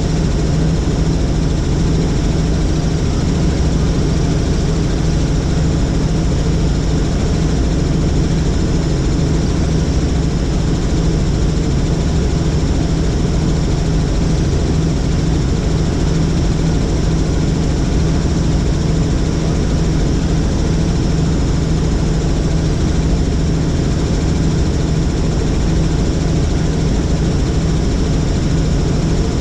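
Helicopter engine and rotor running steadily in flight, a constant loud low hum with a noisy rush over it and no changes.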